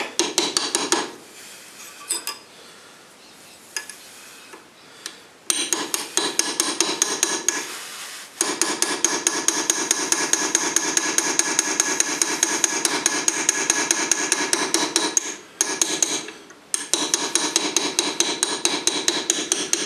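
Hand engraving: a small hammer tapping a graver in rapid light strokes, several a second, as it cuts a line into a metal plate clamped in a steel vise, the plate ringing under each tap. The tapping is sparse and quiet for the first few seconds, then runs in long steady bursts with a short break near the end.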